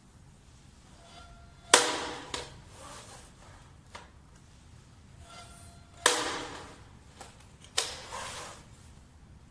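A 9-inch lever-action vinyl flooring cutter chopping through a vinyl plank three times, each cut a sharp crack with a brief ringing tail. Lighter clicks and taps come in between as the plank is slid along and repositioned.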